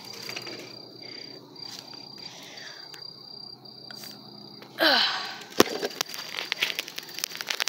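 Insects trilling: a steady high-pitched trill, broken by short gaps. About five seconds in comes a brief loud sound, then a sharp knock and quick irregular clicking.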